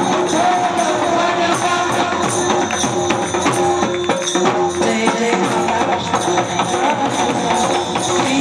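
Marathi folk devotional music: a wavering melody line over steady jingling hand percussion.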